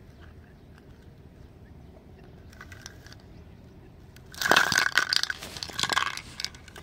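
A metal tin can clattering and scraping as it is moved on the ground, in a loud burst about four and a half seconds in and a shorter one near six seconds, after a stretch of faint background noise.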